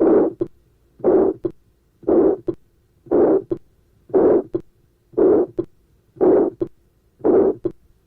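Heart sounds of aortic stenosis heard at the aortic area: a medium-pitched to harsh ejection systolic murmur after each first heart sound, ending before a short, sharp second heart sound. The beat repeats steadily about once a second, eight beats in all.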